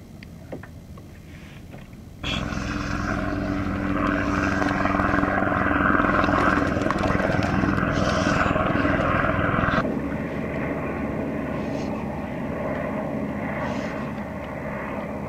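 A steady engine drone that starts abruptly about two seconds in and drops to a quieter, even drone near the ten-second mark.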